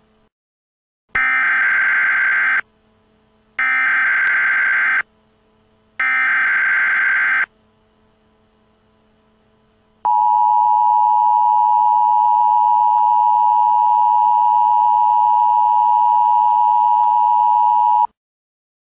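Emergency Alert System header: three identical short bursts of screeching data tones (the SAME header, sent three times), then the EAS two-tone attention signal held steady for about eight seconds and cutting off sharply, announcing that an emergency alert message follows.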